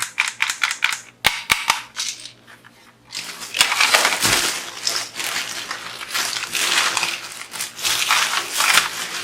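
Plastic toy rifle parts and their packaging being handled: a quick run of sharp plastic clicks and knocks, then several seconds of crinkling, rustling wrapping.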